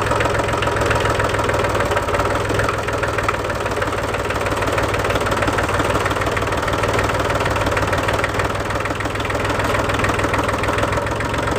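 Diesel tractor engine running steadily with a fast, even pulse.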